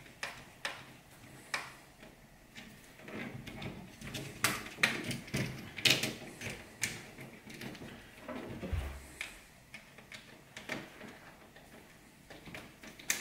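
Irregular small clicks and knocks of a plastic socket front plate, stiff copper conductors and a screwdriver being handled while the wires are fitted into the socket's terminals and the terminal screws tightened.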